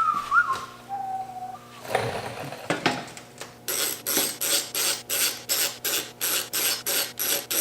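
Rhythmic strokes of a hand tool working metal, about three a second, starting a little past halfway, with the scraping sound of filing or sawing.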